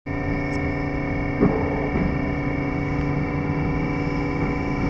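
Electric passenger train running along the line, heard from behind the driver's cab: a steady rumble with several constant humming tones, and a knock about a second and a half in with a weaker one shortly after.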